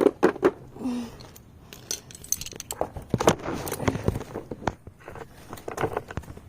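Metal hand tools clinking and clattering against each other, a string of short knocks and clinks, with a sharp knock at the start.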